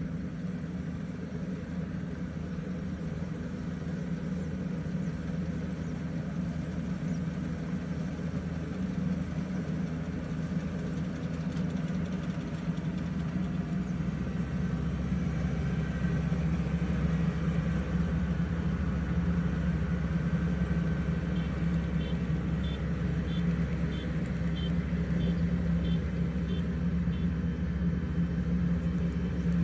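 Kubota ER112 combine harvester's engine running steadily, getting louder and deeper about halfway through. Near the end a run of about nine short high beeps sounds at an even pace.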